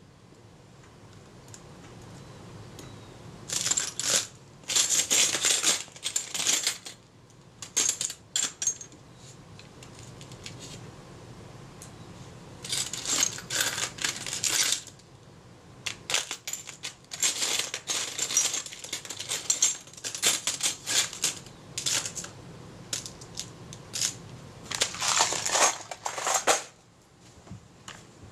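Small metal camera parts and tools clinking and rattling against each other in quick runs of sharp clicks, with short pauses between the runs, as a disassembled camera body is handled and its parts are lined up.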